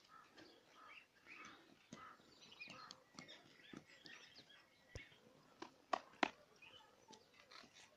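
Faint outdoor background of distant voices and small bird chirps, with two sharp clicks about six seconds in.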